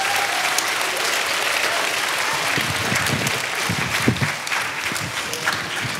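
Large audience applauding, many hands clapping together at once, easing slightly near the end.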